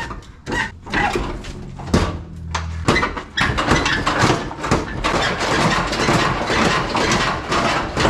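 Sheet-metal body panel being pulled and worked loose, with scattered knocks and then, from about three seconds in, a continuous clatter and scraping of metal.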